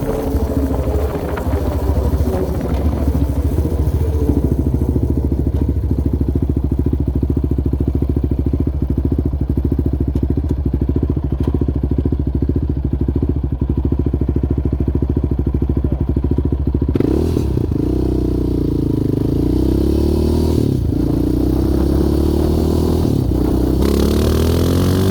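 Yamaha Raptor 700R quad's single-cylinder four-stroke engine running at a steady pace, then revving up and down repeatedly through the last third, its pitch rising and falling as it accelerates and backs off.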